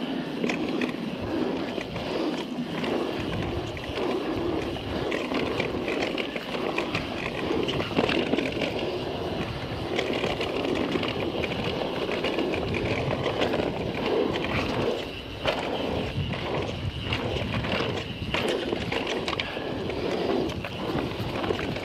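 Guerrilla Gravity MegaTrail mountain bike riding fast down a dirt trail: a steady rush of knobby tyres rolling on dirt, broken by frequent clicks, knocks and rattles from the bike over the rough ground.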